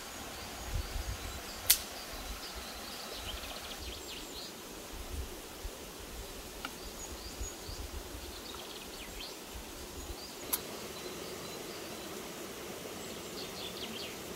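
Steady forest ambience with faint birds chirping now and then. Two sharp clicks of dry sticks knocking, about two seconds in and again about ten seconds in, as kindling is stacked into a teepee for a fire.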